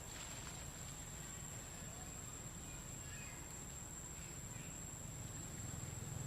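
Outdoor ambience dominated by a steady, high-pitched insect drone, over a low rumble. There are a few faint short chirps about halfway through.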